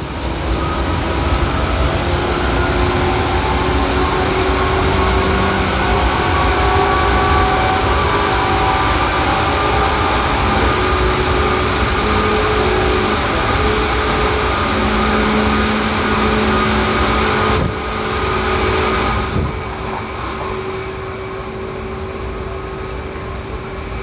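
Seibu 4000 series electric train running at speed, heard from inside the car: a loud steady rumble of wheels on rail, with a faint traction-motor whine, echoing in a tunnel. The noise drops suddenly about two-thirds of the way through, as the train comes out of the tunnel.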